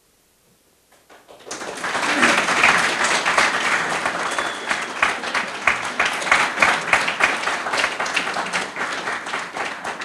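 A small audience applauding, the clapping starting about a second in and going on steadily.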